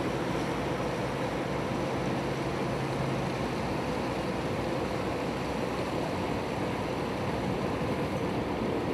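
A boat's engine running steadily as the boat moves through the water, with the rush of water along the hull.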